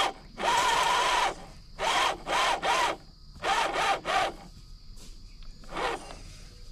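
Traxxas TRX4 RC crawler's electric motor and drivetrain whining and grinding in a series of short throttle bursts, each rising and falling in pitch. This is the sudden loudness the owner is puzzling over.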